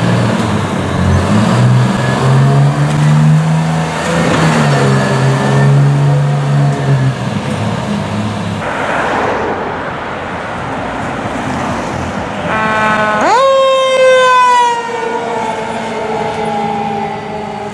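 Fire trucks responding under lights and sirens. For the first half there are loud, low, steady blaring tones over engine and road noise. About 13 seconds in, a siren rises sharply in pitch, then slowly winds down.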